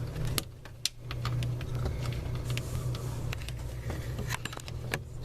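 Scattered light clicks and handling noises as a screw is turned back in and parts are fitted under a kitchen sink, over a steady low hum.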